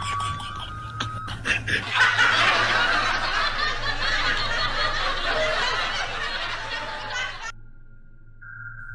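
Many people laughing together, swelling about two seconds in and cutting off suddenly near the end; a steady high electronic tone then starts.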